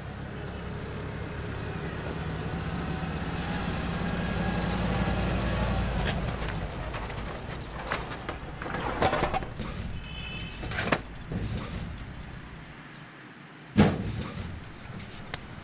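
A motor vehicle's engine running, growing louder for the first few seconds and then fading, followed by scattered knocks and clatter and one sharp bang near the end.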